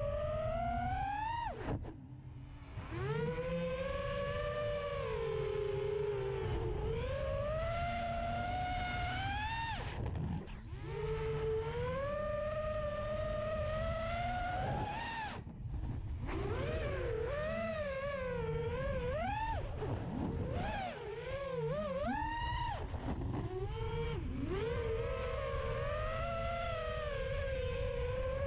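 FPV quadcopter's electric motors and propellers whining, recorded onboard. The pitch rises and falls constantly with the throttle and cuts out briefly several times, over a steady low rumble.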